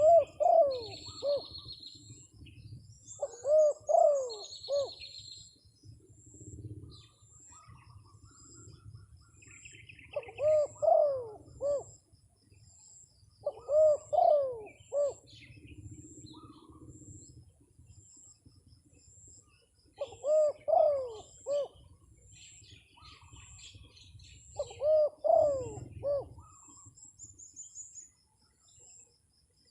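Spotted dove cooing its multi-note phrase six times, a few seconds apart, with small birds chirping faintly in between.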